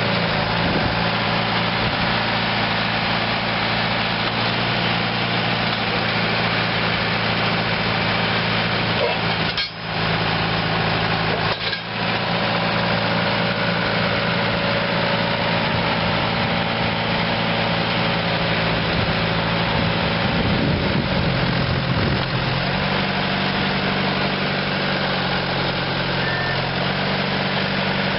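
Deutz four-cylinder turbo diesel engine of a 2006 Vermeer RT650 trencher running at a steady idle. The sound drops out briefly twice near the middle, and the engine speed steps up a little about three quarters of the way through.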